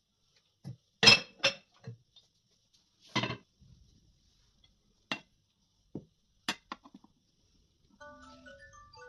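Kitchen dishes and utensils clinking and knocking, a scattered series of separate strikes, the loudest just after a second in. About a second before the end, soft plucked instrumental music starts.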